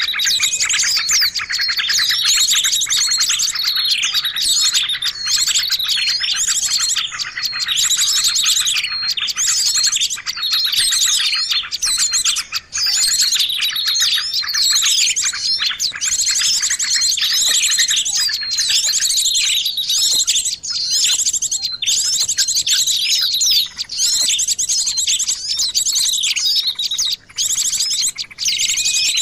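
Bird-lure recording of many small songbirds calling together: a dense, unbroken mix of rapid chirps, trills and whistles, the kind of noisy small-bird combination played to draw birds in for trapping.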